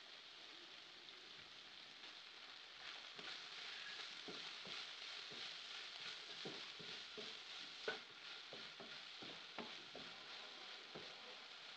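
Diced carrots and broccoli sizzling faintly as they sauté in a deep non-stick pan, with a wooden spatula stirring, scraping and knocking against the pan. The stirring starts about three seconds in, with one louder knock about eight seconds in.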